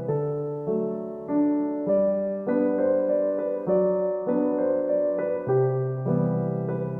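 Background music: gentle piano, chords and notes struck in an even rhythm, each fading after it is played.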